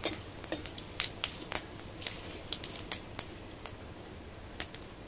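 Nigella seeds and dried red chillies crackling and popping in hot oil in an aluminium kadai, a quick irregular run of sharp pops over a faint sizzle that thins out after about three and a half seconds.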